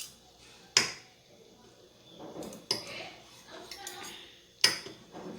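Cutlery clinking against a plate or bowl while eating pasta: two sharp clinks about four seconds apart, with softer clicks and clatter between.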